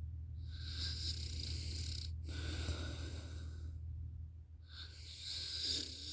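A sleeping person snoring: heavy, noisy breaths in and out, one starting about half a second in, the next about two seconds in, and a third near the end. A steady low hum runs underneath.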